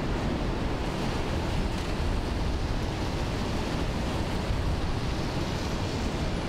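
Steady city street noise: an even low rumble of traffic, with no distinct events.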